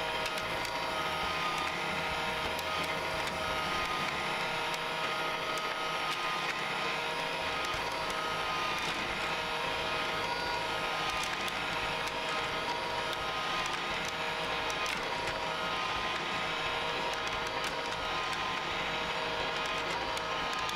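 A Hot Wheels Super Ultimate Garage's battery-powered spiral car elevator runs steadily: a small toy motor and plastic gearing whirring, with light ticking.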